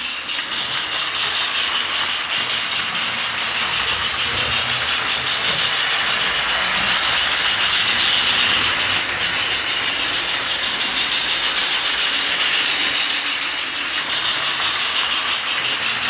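Lionel 8141 toy steam locomotive running with its MPC-era Electronic Sound of Steam unit, giving a continuous electronic hissing steam chuff over the mechanical rattle of the running train.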